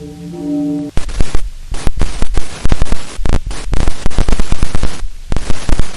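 Brassy orchestral broadcast theme music cuts off abruptly about a second in. Very loud harsh static and glitch noise then takes over, stuttering on and off in bursts with brief gaps: the sound of a TV broadcast signal being broken into.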